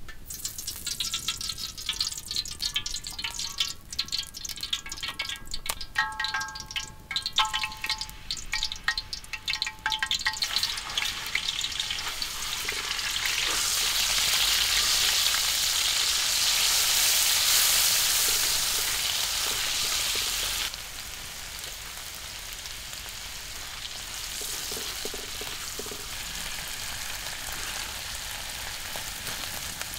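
Hot cooking oil crackling and spitting in a metal wok over a wood fire, then a loud sizzle as ingredients are fried and stirred with a spatula. About two-thirds through, the sizzle drops abruptly to a quieter, steadier frying sound.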